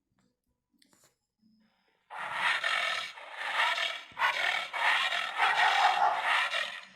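An animal-call sound effect played back from a phone sound-effects app, starting about two seconds in and coming in about four stretches with short gaps between them.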